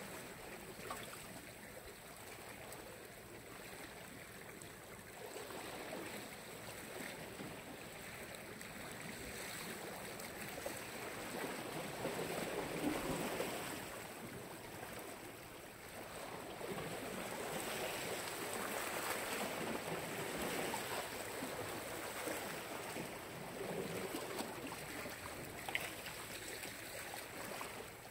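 Black Sea waves washing on the shore, rising and falling in slow swells, the strongest about halfway through.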